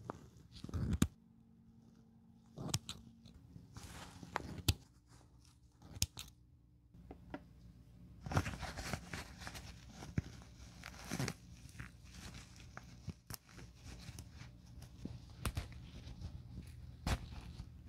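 Small scissors snipping through the stitching along a handbag's zipper tape, a series of sharp, crunchy cuts spaced irregularly. The stitches are being cut to free the worn-out lining. About eight seconds in, the leather bag rustles as it is turned and handled.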